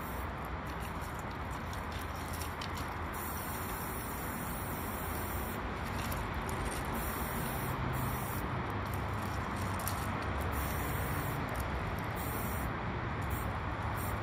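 Aerosol spray paint can hissing as it is sprayed onto the steel side of a freight car, over a steady low rumble.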